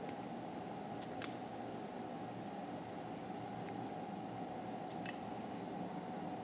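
Metal surgical instruments, a needle holder and forceps working a suture through skin, give two pairs of sharp clicks, about a second in and again about five seconds in, over a steady background hum.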